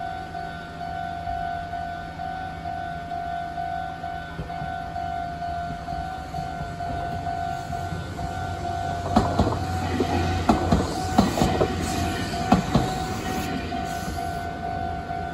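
Level-crossing warning bell ringing in a steady repeating pattern while a Meitetsu train passes. The train's wheels clatter over rail joints with a low rumble for a few seconds past the middle, and the bell stops near the end.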